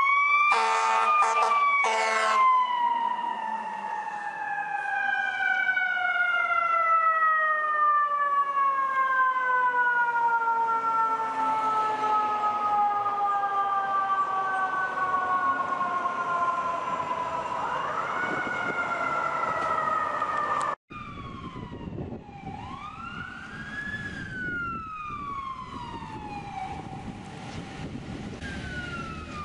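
Fire truck siren wailing: it rises, then slowly falls away over about fifteen seconds, with a series of horn blasts near the start and another rise shortly before it cuts off. After the cut, a quieter siren wails up and down over traffic noise.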